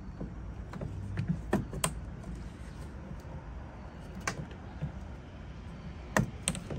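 Scattered metallic clicks and knocks of locking hose clamp pliers working a spring hose clamp on a coolant reservoir hose, the two sharpest clicks close together near the end, over a low steady hum.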